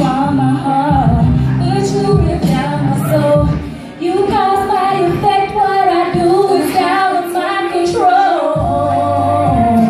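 Live vocalist singing a melodic line into a microphone, amplified over backing music with a low bass line. There is a brief dip about four seconds in, and one long note is held near the end.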